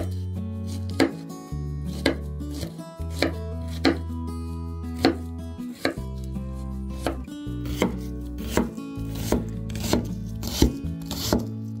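Knife chopping vegetables in single strokes, about one a second and a little faster in the second half, over steady background music.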